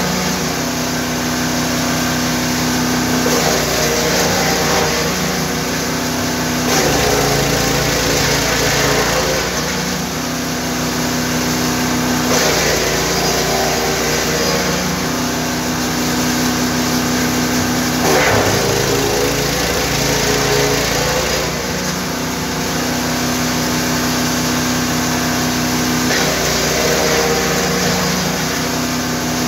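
GTM GTS 900 wood chipper's 9 hp engine running, its note shifting every few seconds.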